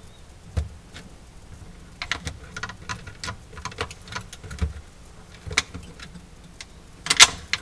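Plastic wire-harness connectors and wires being handled and plugged together, with scattered small clicks and rustles and a louder clatter near the end.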